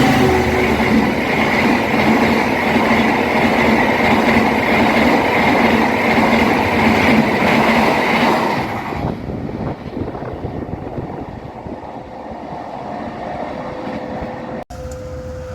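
A train rolling past at close range, a loud steady rumble of wheels on rail that fades away about nine seconds in.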